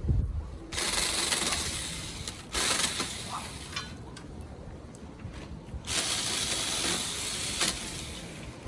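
Saker battery-powered mini chainsaw cutting through branches in two runs of about two to three seconds each, a gritty hiss of chain on wood with a quieter pause between.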